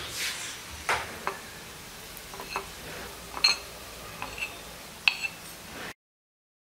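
Metal spoon and skewer clinking on a nonstick paniyaram pan as cooked paniyaram are lifted out onto a ceramic plate: about eight sharp, unevenly spaced clinks.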